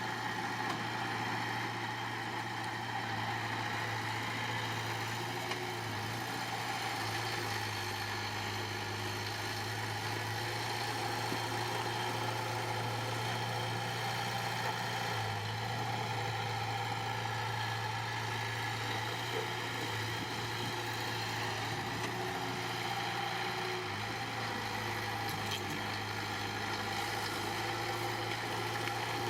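Diesel engine of heavy construction machinery running steadily with a constant low hum, its pitch barely changing.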